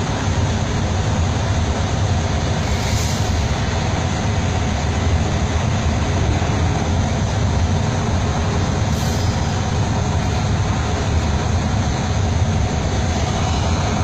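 Truck engine running with steady rumble and road noise, heard from inside the cab as it moves off.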